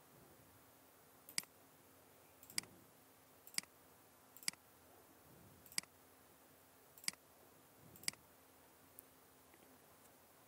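Computer mouse button clicking, seven sharp single clicks about a second apart, over a faint steady hum.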